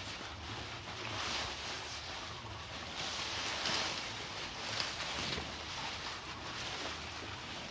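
A cow feeding on long-bladed fresh grass at close range: the leaves rustle and crunch in irregular strokes as it tears and chews them, with a stretch of louder rustling partway through as blades brush close by.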